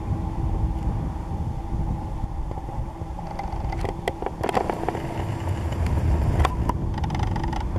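Low, uneven rumble of wind on the microphone under a steady low hum. A run of sharp clicks and knocks comes about three and a half to five seconds in, with two more near the end.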